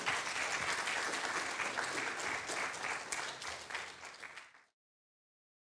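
Audience applauding, an even patter of many hands clapping that cuts off abruptly a little over four and a half seconds in.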